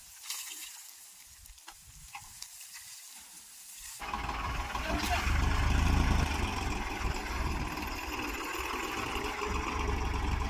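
Dry sugarcane trash rustling and crackling as it is forked and trodden down on a trolley load. About four seconds in, a farm tractor's diesel engine idling close by comes in suddenly and becomes the loudest sound, with the rustling of the dry stalks over it.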